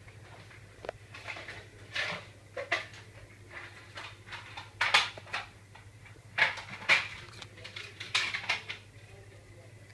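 Small ceiling fan motor running with no blades fitted, giving a steady low hum, under a run of irregular clattering knocks, the loudest about five and seven seconds in.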